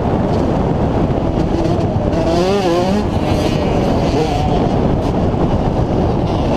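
A 2003 Yamaha YZ125's single-cylinder two-stroke engine revving hard under race load, its pitch repeatedly rising and falling, over steady wind rush on the bike-mounted microphone.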